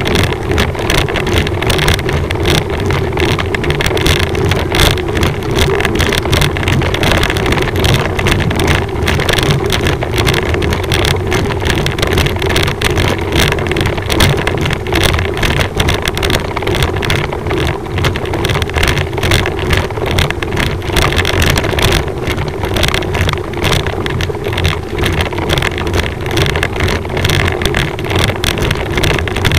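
Steady drone of a slow-moving motor vehicle's engine, mixed with wind rushing over the microphone.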